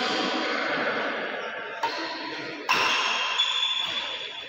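Music playing, with sharp racket strikes on a shuttlecock during a badminton doubles rally: one just before two seconds in, another near three seconds and a lighter one soon after.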